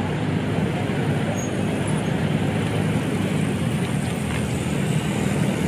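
Steady outdoor road traffic noise: a constant low rumble with no separate events standing out.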